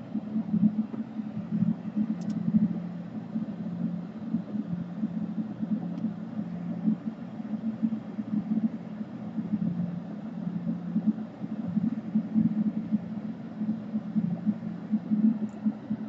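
A steady low hum with an uneven, fluttering level.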